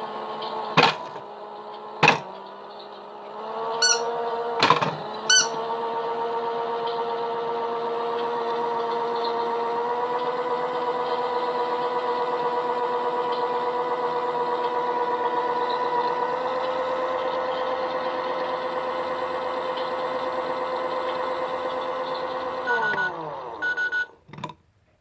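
Toy washing machine's small electric motor running with a steady hum, then winding down with a falling pitch near the end. A few sharp clicks and short electronic beeps come before the hum starts, and more beeps come just before it stops.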